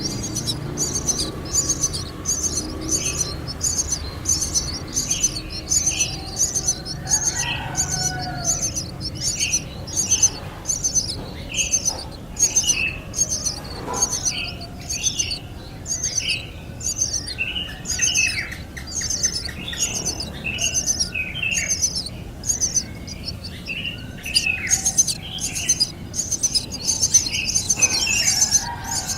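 Nestling birds begging: a high, thin call repeated about twice a second, with a second set of lower chirps joining a few seconds in and growing busier through the middle and later part.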